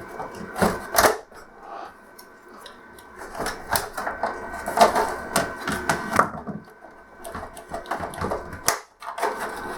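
Plastic clips of an LCD TV's back casing clicking as the cover is pried loose and lifted, with irregular knocks of the plastic panel; the loudest come about a second in and about five seconds in.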